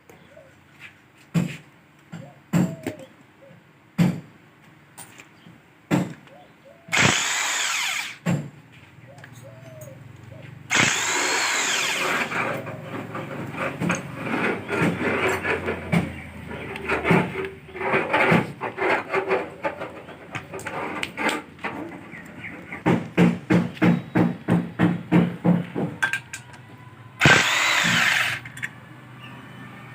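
Power tool running in three short bursts of about a second each, with sharp knocks and clinks of tools on metal in between, and a run of quick, regular taps, about three a second, in the second half.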